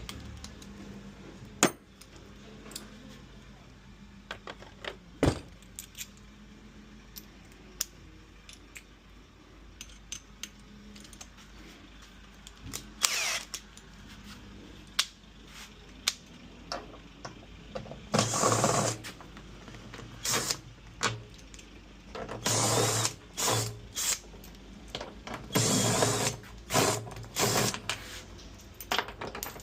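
Power drill-driver running in repeated short bursts, each lasting up to a couple of seconds, mostly in the second half. A few sharp knocks come earlier.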